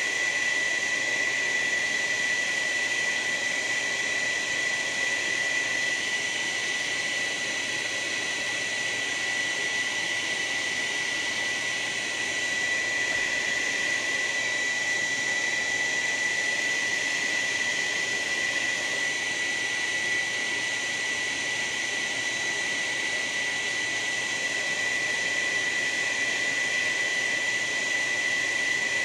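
Small handheld blow dryer running steadily: a high, steady whine over rushing air, drying wet paint.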